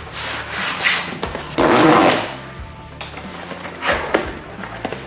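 Cardboard shipping box being handled and opened: rubbing and scraping of cardboard in several bursts, the loudest lasting under a second near the middle.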